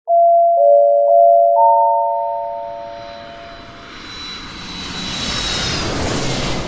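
A four-note chime, like an airliner cabin chime, rings out and fades. Then the noise of a jet airliner builds up, with a high engine whine that falls in pitch near the end.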